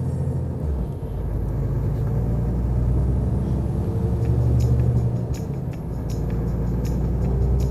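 Renault T 520 tractor unit's diesel engine pulling at full throttle with eco mode switched off, heard from inside the sound-insulated cab as a low, steady drone. The note dips briefly about a second in and again near six seconds.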